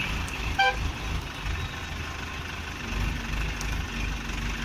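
Heavy diesel engine idling with a steady low rumble. About half a second in there is one brief, high-pitched toot.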